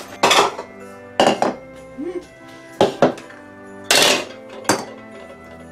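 Plastic mixing bowls and measuring cups set down and handled on a kitchen counter: a string of clattering knocks about a second apart, over background music.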